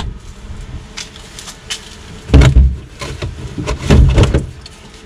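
Refrigerator being rummaged through: scattered clicks and knocks as items and an aluminium drink can are moved on the shelves, with two heavy thumps about 2.5 and 4 seconds in.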